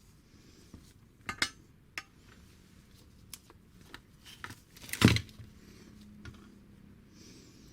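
Metal knocks and clinks as a Vespa primary gear and shaft are tried against the engine case, where the gear teeth foul the case and the primary will not go in. Several light clicks lead up to one loud knock about five seconds in, with a faint low ring after it.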